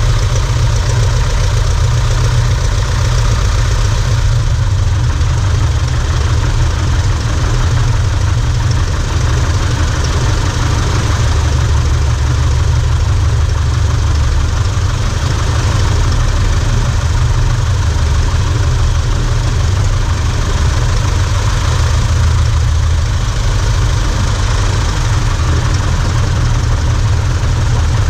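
Great Lakes 2T1A biplane's propeller engine running steadily at low power while the aircraft taxis, heard loud and close from a camera on the wing just behind the propeller.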